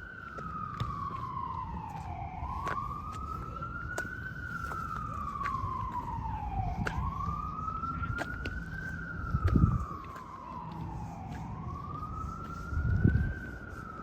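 Emergency vehicle siren wailing: its pitch climbs slowly, then sweeps down, about once every four and a half seconds. Two brief low rumbles, the loudest sounds, come in the second half.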